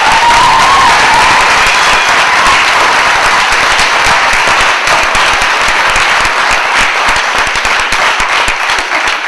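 Audience applauding, a sustained round of clapping by many people that holds steady and starts to thin out near the end.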